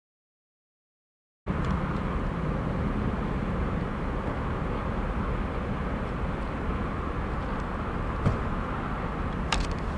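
Silence for about a second and a half, then a steady low outdoor rumble with a couple of faint clicks near the end.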